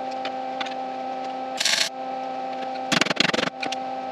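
MIG welder tack welding the sheet-metal inner fender: a short crackling burst about one and a half seconds in, then a longer sputtering crackle around three seconds in, over a steady electrical hum.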